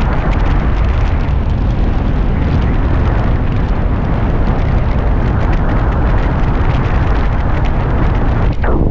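Wind buffeting the microphone in flight: a loud, steady rush and rumble with no engine note.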